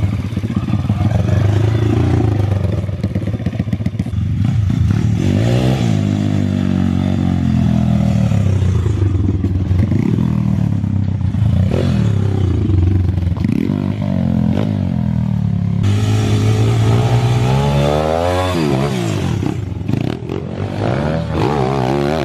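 Pit bike's small single-cylinder engine running and being revved up and down several times, its pitch rising and falling with the throttle.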